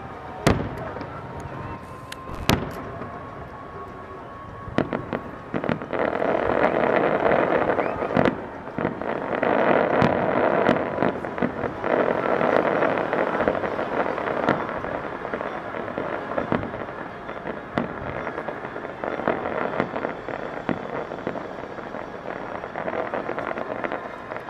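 Aerial fireworks display: loud single bangs of shells bursting in the first few seconds, then from about six seconds in a long spell of dense crackling with scattered bangs, easing off toward the end.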